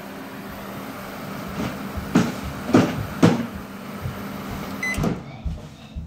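Panasonic inverter microwave oven running with a steady hum, now staying on rather than shutting off after a few seconds, its burnt high-voltage connector repaired with wire and solder. Three knocks come between about two and three and a half seconds in, and a short beep sounds about five seconds in as the hum stops.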